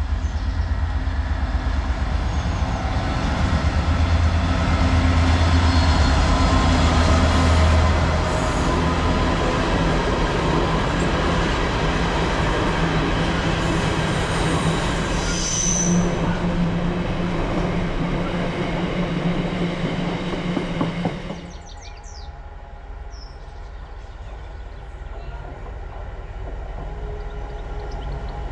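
Class 66 diesel freight locomotive running through with a train of empty container flat wagons: a steady engine note with the clatter and rumble of the wagons' wheels on the rails. It is loudest early on. About 21 s in the sound drops abruptly to a much quieter scene, where another approaching train slowly grows louder.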